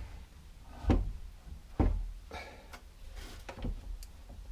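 Woodworking clamps being put on and tightened on a glued-up wooden box: two solid wooden knocks about a second apart, then a run of lighter clicks and taps.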